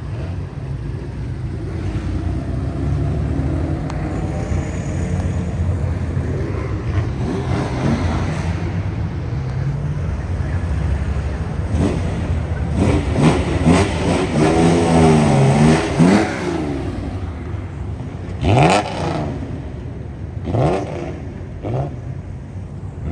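Classic Nissan Skyline engines running as the cars roll past and pull away, revved up and down several times about halfway through, then a few short, sharp throttle blips near the end.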